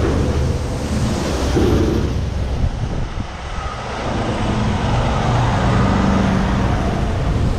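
Tractor-trailers passing close by on wet pavement: a diesel engine drone and the hiss of tyres through standing water, swelling again in the second half as another rig goes by.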